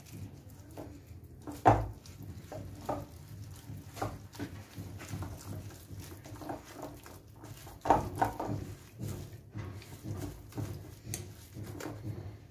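A whisk beating a thick, lumpy semolina batter in a glass bowl: irregular clicking and tapping of the whisk against the glass, with two louder knocks about two seconds in and about eight seconds in.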